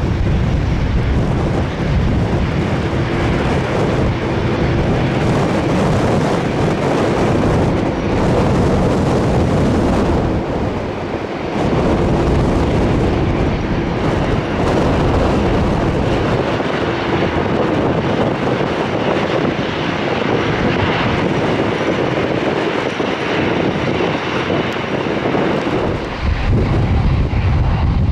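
The CFM56 jet engines of a Boeing 737-800 airliner running as it arrives, a steady roar with a faint hum in it. Strong gusts of wind buffet the microphone, loudest at the start and again near the end.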